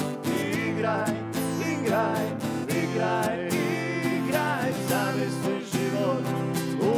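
Live acoustic duo: two acoustic guitars strummed steadily while a man sings a melody over them.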